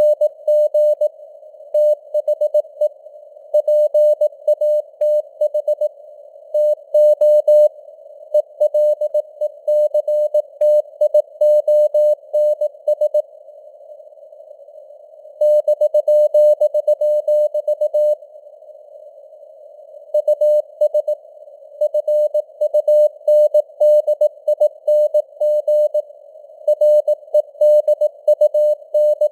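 Morse code (CW) at 18 words per minute, spelling out news headlines: a single-pitch beep keyed on and off in dots and dashes over a narrow band of simulated radio receiver hiss. The keying stops twice for about two seconds, about thirteen and eighteen seconds in, leaving only the hiss.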